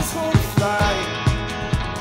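Several layered clean electric guitar parts on a Yamaha Pacifica PAC311H play a twangy midwest emo riff, in D A D F# A E tuning with a capo on the 2nd fret. A steady beat thumps underneath.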